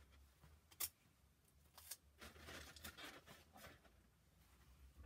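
Faint rustling and crinkling of paper and sticky tape as tabs are pressed down inside a paper hat, with a sharp click just under a second in and another about two seconds in.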